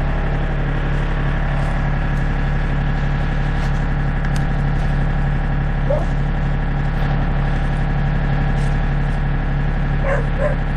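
Diesel engine of a John Deere 3025 compact tractor running steadily with a backhoe attached. A dog barks a couple of times near the end.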